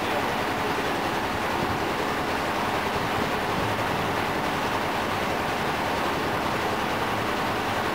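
Steady drone and hiss of a fishing boat's engine running, unchanging in level.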